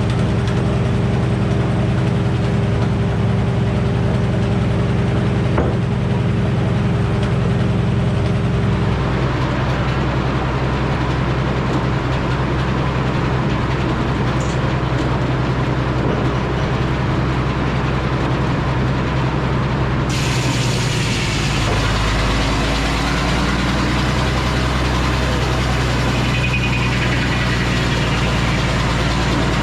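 Engine powering an antique Frick sawmill, running steadily; its note changes about nine seconds in and again about twenty-one seconds in.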